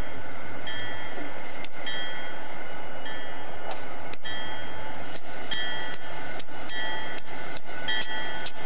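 A string of diesel locomotives rolling slowly past, engines running. Irregular sharp clicks from wheels over rail joints mix with a high tone that keeps coming on and off.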